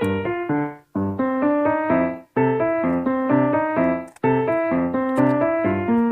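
Background music: a quick keyboard melody of short, even notes, cutting out briefly three times.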